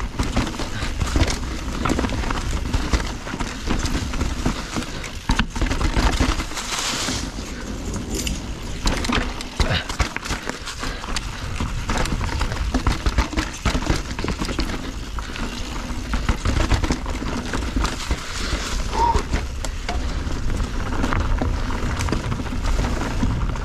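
Mountain bike rolling fast down a rocky trail strewn with dry leaves: tyres crunching over leaves and stones, with frequent knocks and rattles from the bike over the rough ground and a constant low rumble.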